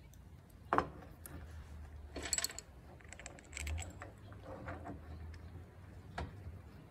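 Small metal parts of a Ford 1710 tractor's hydraulic control valve clicking and tapping as they are handled and fitted back into the valve body by hand. There is a sharp click about a second in, a cluster of rattling taps in the middle and another click near the end, over a low steady rumble.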